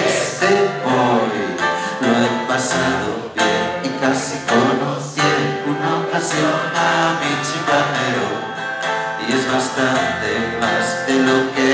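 A man singing to his own strummed acoustic guitar, a live solo performance.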